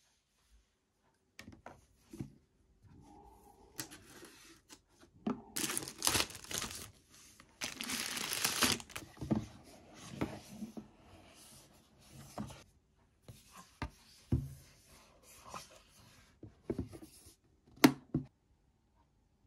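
Packaging being torn and crinkled open by hand, in irregular rustles and tears, while paper gift boxes are handled. A single sharp click near the end.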